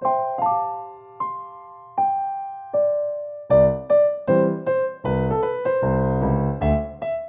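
Background music on electric piano: sparse, slowly decaying chords, joined about halfway by a bass line and a busier melody.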